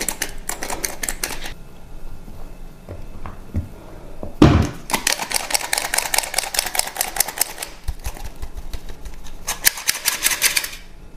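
Hand-held stainless-steel flour sifter clicking rapidly as its mechanism works flour through the mesh, in three bursts with short pauses between. A single dull thump comes just before the second burst.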